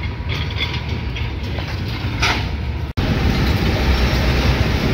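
Steady low engine rumble mixed with general noise from a busy industrial yard. It drops out for an instant about three seconds in, then carries on louder and with more hiss.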